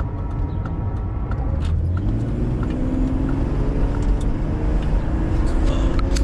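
BMW E36 being driven, heard from inside the cabin: a steady low engine and road rumble. About two seconds in, the engine note rises as the car accelerates, then holds steady. Faint light ticks recur throughout.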